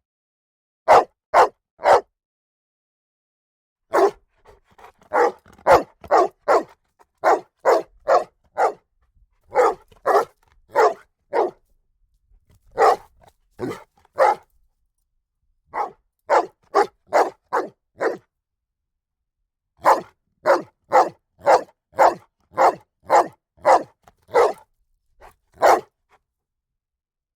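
A security guard dog barking: single barks and quick runs of several barks in groups, with silent pauses between them.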